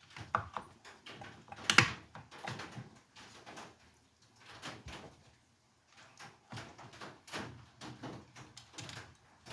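Irregular light clicks and knocks of parts and tools being handled on a Stihl MS311 chainsaw while its ignition coil is fitted, with one sharper knock about two seconds in.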